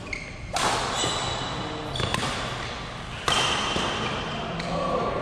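Badminton rally in a sports hall: shoes squeaking on the court floor, with a sharp racket strike on the shuttlecock about two seconds in.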